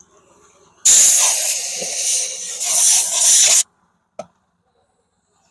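A loud, steady hiss of escaping compressed gas lasting a little under three seconds and cutting off abruptly, followed about half a second later by a single click.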